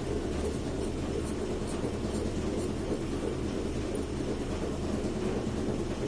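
A steady low hum runs throughout, with faint crisp snips of scissors cutting through fabric, about two a second, in the first half.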